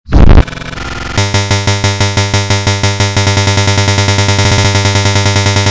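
Digitally warped, heavily distorted synthesized logo audio. A sudden very loud burst opens it; from about a second in, a pitched sound is chopped into a rapid stutter, about seven repeats a second, that speeds up slightly.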